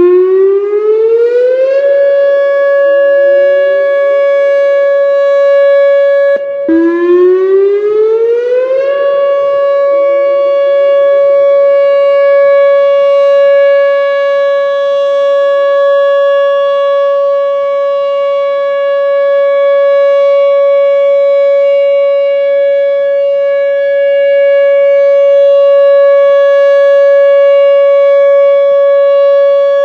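Whelen WPS-2910 electronic siren sounding its steady Alert tone. The tone glides up to pitch over about two seconds, cuts out briefly about six seconds in, glides up again and then holds one steady pitch, with fainter rising glides trailing behind it.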